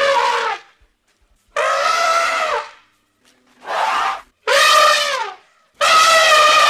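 Elephant trumpeting: five calls in quick succession, each lasting half a second to a second with short gaps between, several dropping in pitch at their ends.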